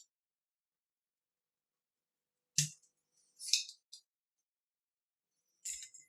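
Desoldering a circuit board: a sharp snap with a low thump, then a short high hiss about a second later. A second snap comes near the end.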